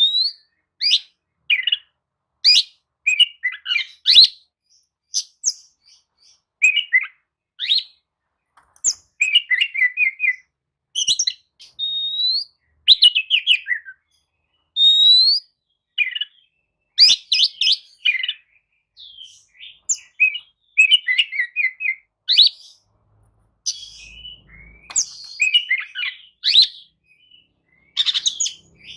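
Oriental magpie-robin singing: a varied run of clear whistled phrases, some slurred upward, mixed with quick chattering note groups, with short pauses between phrases.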